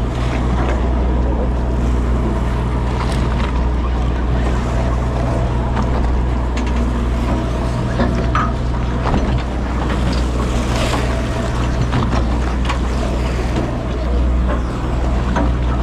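A party boat's engine running with a steady low drone, with wind noise on the microphone and water noise over it.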